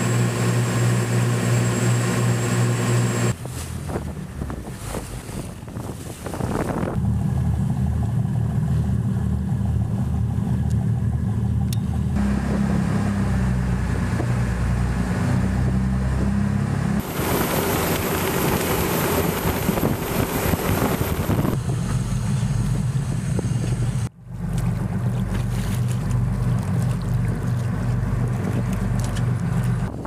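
Small boat engines running underway with wind on the microphone. The engine sound changes abruptly every few seconds, from one boat or engine speed to another.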